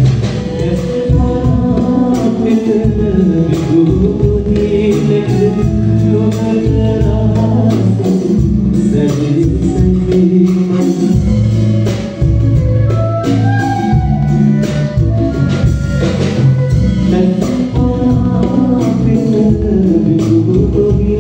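A male vocalist singing live into a microphone with a band behind him, drums included, heard through a hall's amplification.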